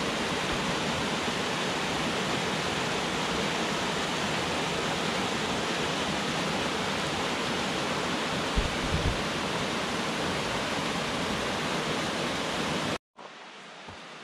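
Steady, even rush of cascading water from a mountain creek or waterfall, with a couple of soft low bumps about eight seconds in. It cuts off abruptly about a second before the end, giving way to much quieter outdoor sound.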